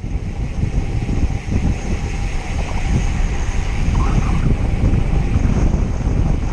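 Wind buffeting the microphone of a camera on a road bike being ridden at speed: a loud, unsteady rumble.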